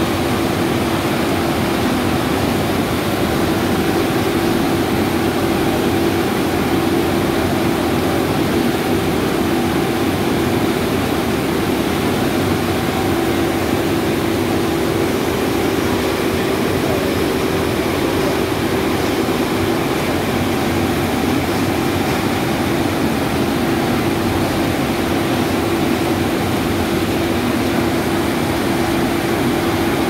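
Wood-chip-fired cyclone furnace boiler plant running: a loud, steady machine roar with a constant hum.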